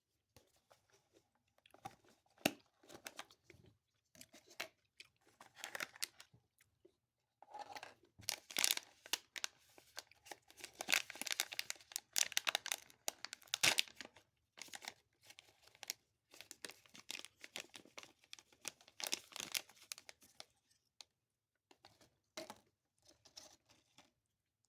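Packaging around a chocolate-covered tarantula being torn open and crinkled, a long run of irregular crackling and tearing noises.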